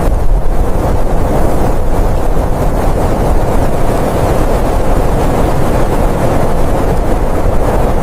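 Blizzard wind blowing in a loud, steady rush, strongest in the low range and rising and falling a little without a break.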